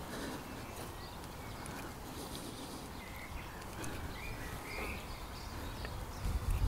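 Quiet outdoor background with a few short bird chirps a little past the middle, faint ticks of steel fence wire being wrapped by hand, and a few low bumps near the end.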